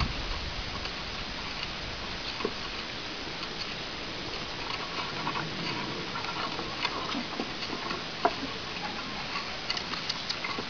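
Bavarian mountain hound puppies' paws and claws pattering and clicking on wooden planks: scattered small taps over a steady hiss, one sharper tap about eight seconds in.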